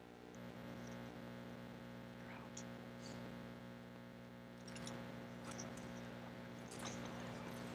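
Faint steady electrical hum, with a few soft scattered clicks.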